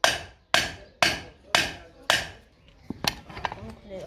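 A hammer striking the hand pump's threaded pipe joint, five even blows about two a second, each ringing briefly, then lighter irregular taps and clinks near the end. The blows are knocking the stuck joint loose so it can be unscrewed.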